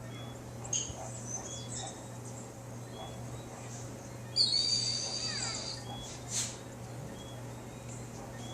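Bird calls, taken for a wild pigeon's odd vocalizations: short high chirps about once a second, and a louder shrill call with falling notes about halfway through, over a steady low hum.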